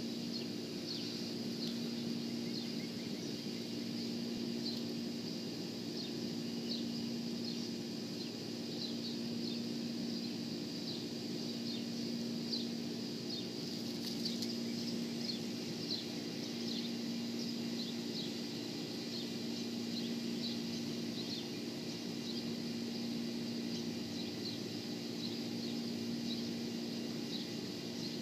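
Outdoor ambience: a steady low hum, with short high chirps from small animals repeating irregularly, about one or two a second.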